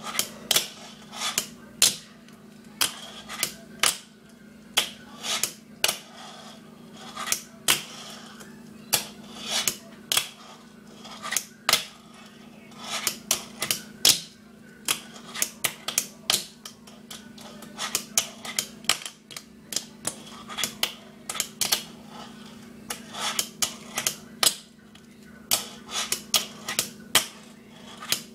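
Wooden fingerboard with bearing wheels flicked through tricks on a stone countertop: many sharp, irregular clacks as the deck pops and lands, with a faint rolling rumble between them. A steady low hum runs underneath.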